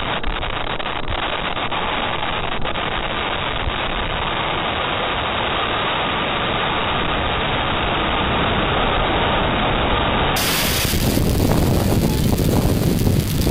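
Small surf breaking and washing up the sand, with wind rushing on the microphone. About ten seconds in the sound turns fuller and a little louder.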